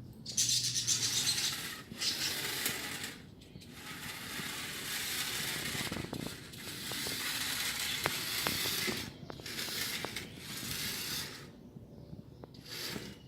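Homemade remote-control drift car running on a hard floor, its drive and the drift platform at the back sliding and rattling. It goes in several runs of a few seconds, with short pauses between, and a few sharp clicks.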